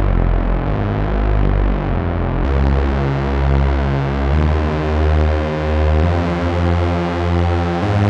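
Korg ARP 2600 synthesizer playing the patch-book 'String Sweetener' patch: sustained chords, several notes at once, moving to a new chord about every two seconds.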